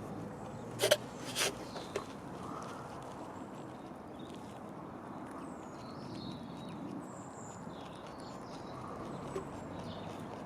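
Netherland Dwarf rabbit chewing a carrot, a run of faint crisp crunches with two sharp louder crunches about a second in. Faint high chirps sound over a steady background hiss.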